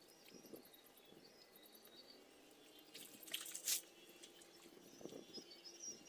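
Faint water splashing and dripping in a shallow muddy pool as a man wades and works the water by hand, with one brief louder splash a little over three seconds in.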